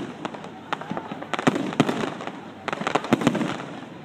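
Fireworks exploding overhead: a rapid run of sharp bangs and crackles, busiest twice in the middle, over a steady background of crowd noise.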